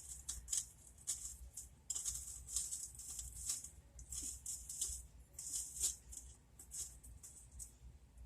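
Faint, irregular rattling and rustling in short bursts as small cut-up carrot pieces are tipped from a bag into the Instant Pot around the roast.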